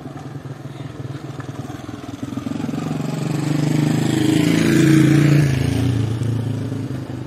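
A motorcycle riding past close by: its engine grows louder, peaks about five seconds in, then fades as it moves away.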